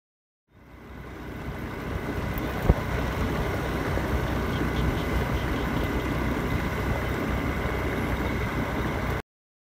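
A vehicle travelling along a paved road, heard from on board: a steady running rumble with road noise. It fades in over the first second or two, has one sharp knock about a quarter of the way in, and cuts off suddenly near the end.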